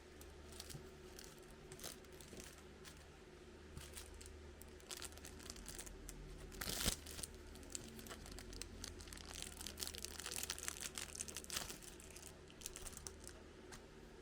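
Packaging being handled: scattered light rustles, one sharp tear about seven seconds in, then a run of crinkling and crackling for a few seconds.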